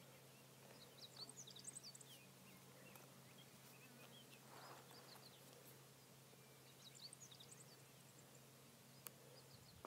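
Near silence with faint bird chirps: two short flurries of high chirps, about a second in and again around seven seconds.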